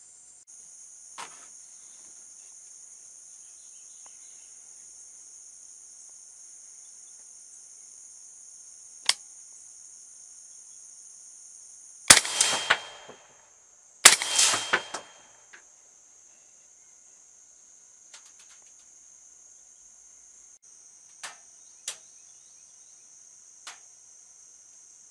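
Two 300 Blackout rifle shots about two seconds apart, each a sharp crack with a short rolling tail, over a steady high chorus of night insects. A few faint clicks come before and after the shots.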